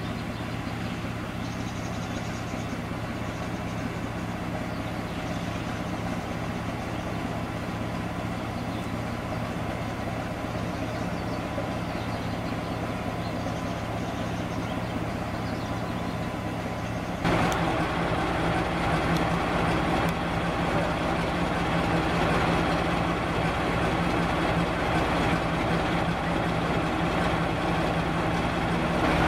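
Class 14 diesel-hydraulic locomotive's engine idling with a steady low hum. About seventeen seconds in it opens up suddenly and runs louder under power as the locomotive pulls its goods train.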